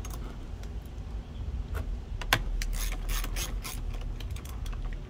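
Hand socket ratchet clicking as it turns a bolt at the battery, with scattered single clicks and a quick run of clicks about halfway through.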